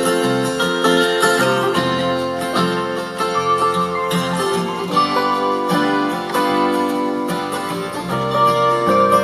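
Music with plucked string instruments played back through a Yamaha AX-596 stereo integrated amplifier as a listening test.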